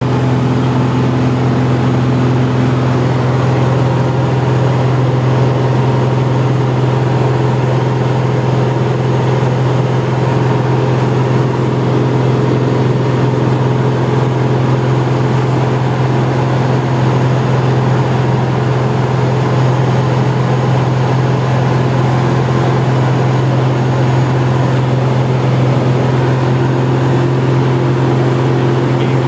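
Jabiru SP500 light aircraft's engine and propeller droning steadily in cruise, heard inside the cabin.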